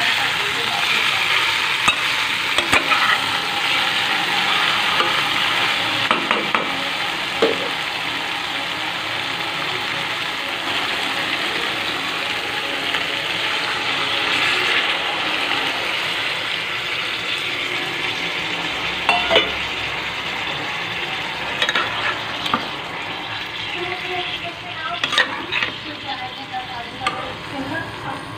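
Chicken pieces and potatoes sizzling in masala in a pot while being stirred, with scattered clicks and scrapes of the spatula against the pot that come more often near the end.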